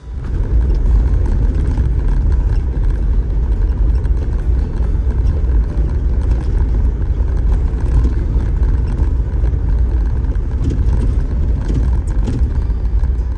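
Off-road vehicle driving on a rough dirt trail: a loud, steady low rumble of engine and tyres that starts suddenly, with a few faint rattles later on.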